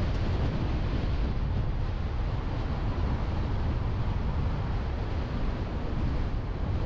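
Car driving along a road: steady wind buffeting on the GoPro's microphone mixed with tyre and road noise, heaviest at the low end.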